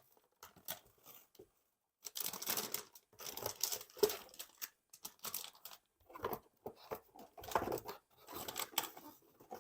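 Packaging being handled and torn by hand: irregular crinkling, rustling and scraping, faint at first and fuller from about two seconds in.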